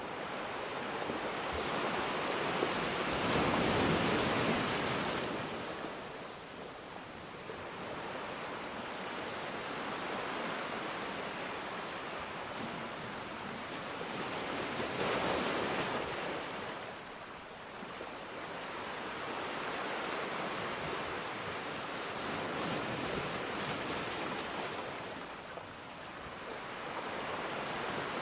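Sea waves breaking on a beach, a continuous wash that swells and ebbs, with louder breakers about four and fifteen seconds in and another building near the end.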